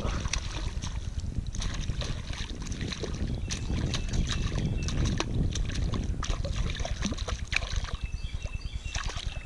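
A hooked pickerel thrashing and splashing at the surface as it is reeled in to the kayak: a busy run of sharp splashes and clicks over a low rumble.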